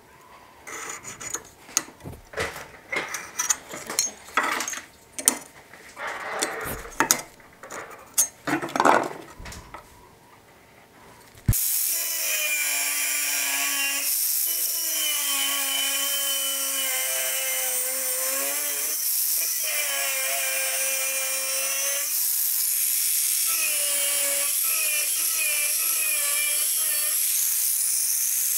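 Scratching and tapping as lines are scribed on a painted steel plate along a steel ruler. About eleven seconds in, an angle grinder starts a steady high-speed whine, its pitch dipping several times as the disc bears on the steel plate.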